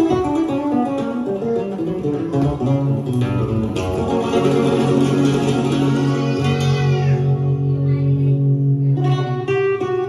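Acoustic guitar music played back through a sound system's loudspeakers. Quick runs of plucked notes give way to a long held chord over a steady bass note, and the playing picks up again near the end.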